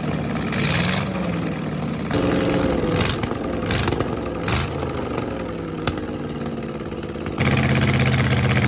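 MerCruiser 5.7 Magnum small-block V8 marine engine running on a test stand, in several short edited takes. Its pitch falls as the revs drop between about two and six seconds in, and it runs louder and steady near the end.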